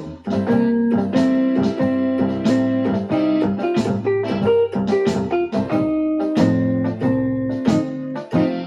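Electronic keyboard playing blues: chords and bass notes struck in a steady rhythm.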